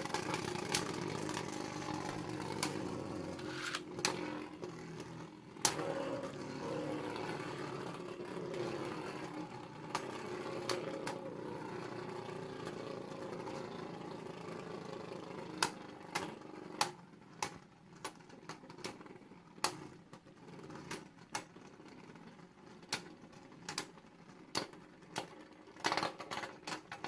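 Two Beyblade Burst tops, CHO-Z Valkyrie and the left-spinning Spryzen Requiem, spinning in a plastic stadium: a steady whirring that slowly fades as they lose speed, with sharp clacks of the tops hitting, a few at first and coming much more often in the second half.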